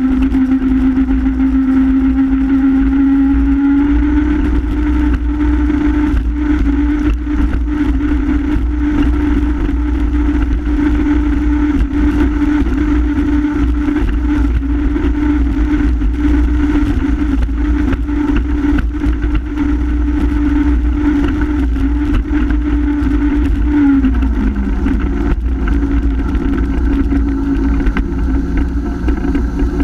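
Honda F-12X AquaTrax jet ski's turbocharged four-stroke engine running hard under way, its note steady, rising slightly about four seconds in and dropping markedly about 24 seconds in, over a heavy low rumble. The ski is losing speed at full throttle, a fault first blamed on the turbo and later traced to a clogged fuel filter.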